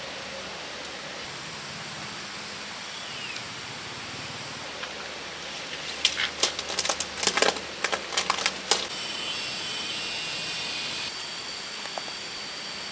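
Steady outdoor background hiss with a short bird chirp early on, then a cluster of sharp snapping clicks lasting about three seconds midway, followed by a steady high-pitched tone for about two seconds.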